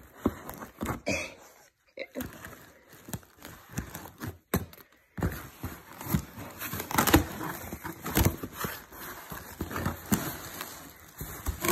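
Cardboard shipping box being torn open by hand along its taped seam: irregular ripping, crackling and scraping, thickening about halfway through, with a rustle of plastic packaging near the end.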